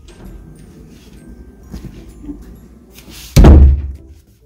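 A loud single thump about three and a half seconds in, dying away within half a second, over a faint low rumble.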